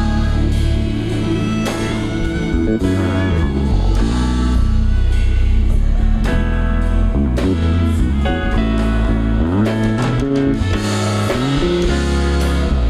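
Live band playing at a sound check: moving bass notes, drum kit and guitar, with keyboard, at a steady high level.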